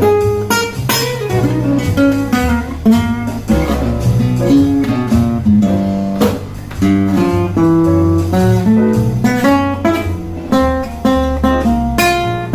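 Acoustic guitar being played: strummed chords mixed with picked single notes, in a steady flow of notes.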